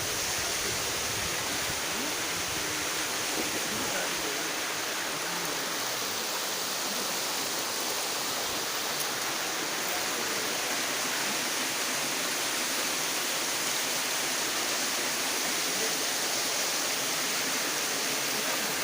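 Steady rush of falling water at a waterfall, an even hiss.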